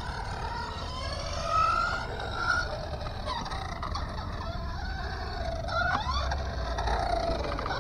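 High-pitched whine of small electric motors, gliding up and down in pitch several times, over a low rumble of wind on the microphone.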